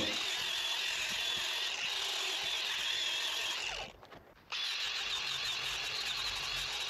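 Cordless angle grinder with a flap sanding disc, running steadily as it sands the surface of an oak log. It drops out for about half a second around four seconds in, then runs again.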